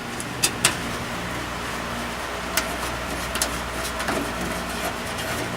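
A few sharp clicks and knocks of computer hardware being handled, over a steady low mechanical hum.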